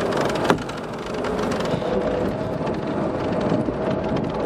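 1977 Ranger motorboat's engine running under way, mixed with a steady rush of wind and water, with one sharp knock about half a second in.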